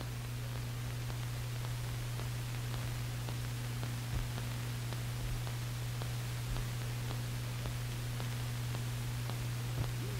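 Steady low hum and hiss with faint scattered clicks: the noise of an old film soundtrack, with no other sound on it.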